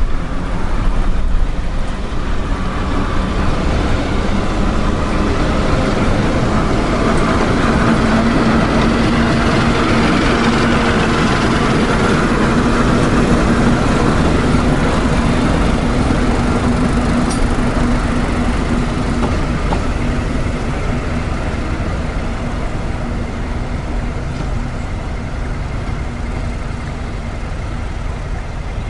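Class 08 diesel shunter D3940's English Electric six-cylinder engine running as it hauls a carriage past, growing louder to a peak about halfway through and fading as it draws away.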